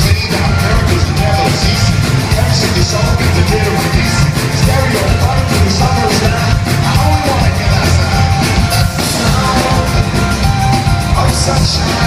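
A live band playing loud amplified music with a steady beat and heavy bass.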